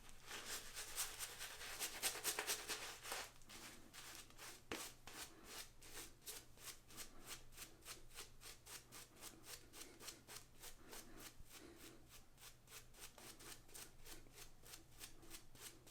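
Synthetic shaving brush working lather on a stubbled face, a soft wet brushing in a steady rhythm of about three strokes a second, busier and a little louder in the first few seconds.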